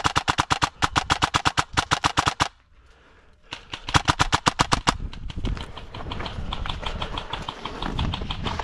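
Airsoft electric gun (a custom Paragon Armory AEG) firing on full auto: a long rapid burst of sharp clicks for about two and a half seconds, a short pause, then a second, shorter burst. A softer run of fast clicks follows from about five seconds in.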